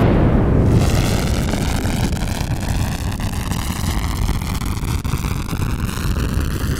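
A steady rumbling hiss with a slow, rising whooshing sweep running through it, typical of a jet-like sound effect laid under the sparks.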